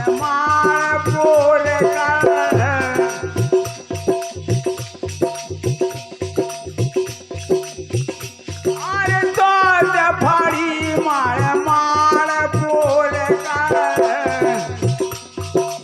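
Folk devotional bhajan music: a steady tambura drone under a jingling rattle and a regular hand-drum beat, with a wavering melodic line that drops out in the middle and comes back about nine seconds in.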